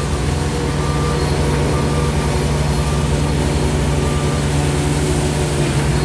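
Heavy diesel construction machine, such as a road roller, running steadily under load. A reversing alarm beeps faintly and fades out within the first couple of seconds.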